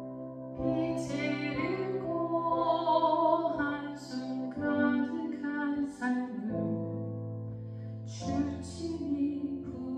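A woman singing a Korean worship song into a microphone over sustained instrumental accompaniment. Her voice comes in about half a second in.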